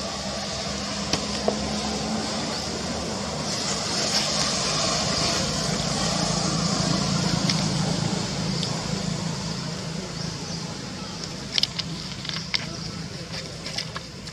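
Outdoor ambience: a low engine hum that grows louder toward the middle and then eases off, under a steady high hiss, with a few sharp clicks near the end.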